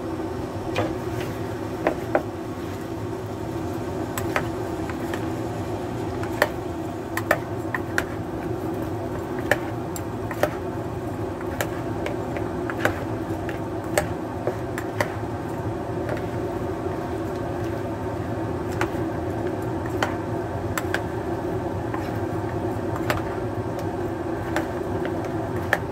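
A metal fork clicks and scrapes against a plastic mixing bowl as chicken wings are tossed in barbecue sauce. The sharp, irregular clicks come a few times every second or two, over a steady low hum.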